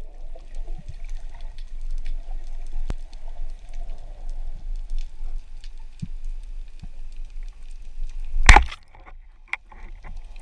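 Underwater sea ambience, a low rumble with scattered faint clicks and crackle. Then, near the end, one short loud crack as a ROISUB 115 Demo 3 speargun, loaded with a single 21 mm band, fires, followed by a fainter click.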